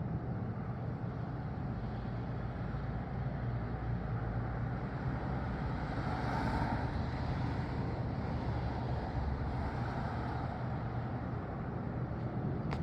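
Steady road-traffic noise with a low hum, and a vehicle passing that swells up to a peak about six seconds in and fades away.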